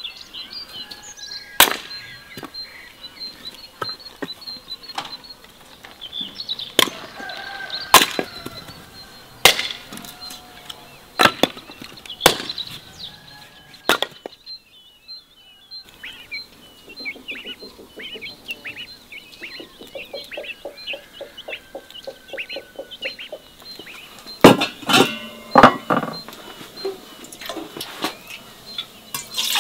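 Logs being chopped with an axe: a series of sharp wooden chops, one every second or two, over birds chirping. After a short break the birdsong carries on alone, with a few more knocks near the end.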